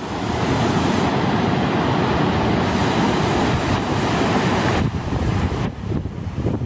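River rapids rushing: whitewater pouring and churning over rocks, a loud, steady roar of water with wind rumbling on the microphone. It eases slightly about five seconds in.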